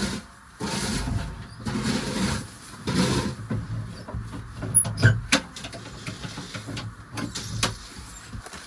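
Footsteps crunching on the ground at a slow walking pace, about one a second, with a few sharp clicks about five seconds in.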